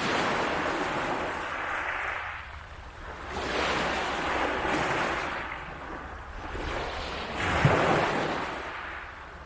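Waves washing onto the beach, swelling and falling back three times, a few seconds apart.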